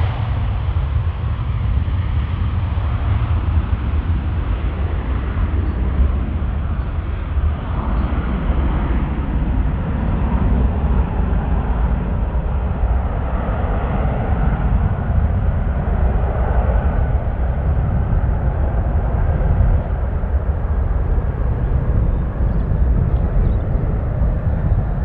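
Airbus A330 airliner's twin jet engines at takeoff power during the takeoff roll and lift-off: a steady, loud rushing noise with a heavy low rumble.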